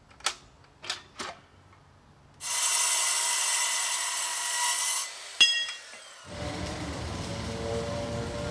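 A few short knocks, then a metal-cutting circular saw cutting through rectangular steel tubing for about two and a half seconds, followed by a sharp ringing clang of steel. A steady rushing noise takes over about six seconds in.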